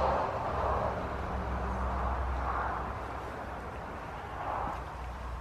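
Steady low background rumble with a soft hiss; a faint higher hum drops out about two seconds in.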